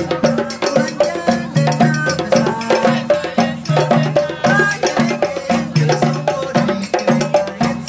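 Djembe hand-drum ensemble playing a fast, steady interlocking rhythm: sharp slaps over repeating low drum tones.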